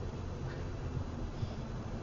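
Steady low road and engine rumble of a car cruising on a highway, picked up inside the cabin by a dashcam microphone.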